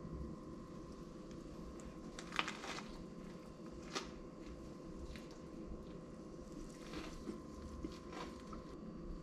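A few short crunches and crackles from a tortilla wrap being handled and pulled apart, over a faint steady hum.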